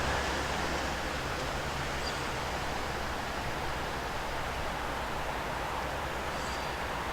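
Steady outdoor noise, like wind or distant traffic, with a low vehicle hum that fades away about a second in.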